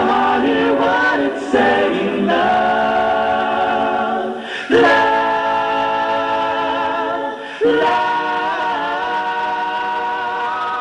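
Male vocal trio singing long held close-harmony chords, with a new chord coming in about a second and a half in, again near the middle, and again about three quarters of the way through.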